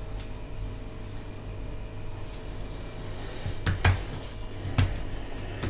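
A steady low room hum with a few soft knocks about four and five seconds in, from hands pressing shortcrust pastry dough on a floured marble worktop.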